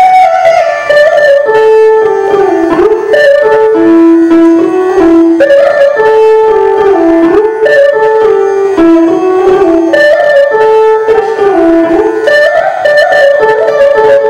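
Electric mandolin playing a Carnatic-style melody, one note at a time. The notes are held and slide and bend between pitches.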